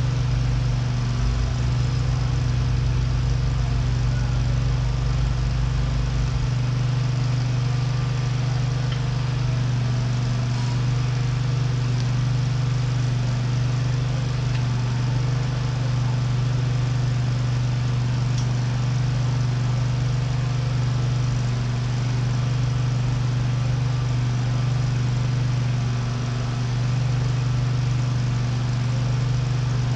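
A steady, loud, low machine hum with no change in pitch, and a few faint ticks.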